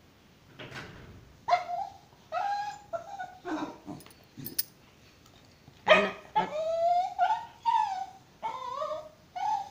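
A dog whining and yelping in a quick series of short, high, pitch-bending cries that start about a second and a half in, the loudest about six seconds in. The dog is crying and begging for chicken that has run out.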